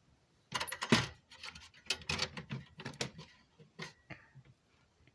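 Handling clatter: a quick run of clicks, knocks and rustles as hardware and its packaging are picked up and moved about, with the loudest knock about a second in.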